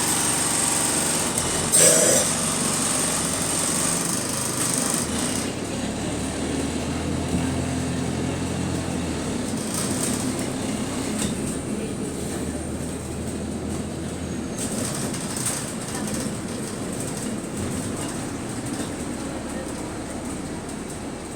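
Cabin sound of a service bus on the move: engine and road noise with rattles. There is a sharp clunk about two seconds in, and a low drone that fades out around the middle.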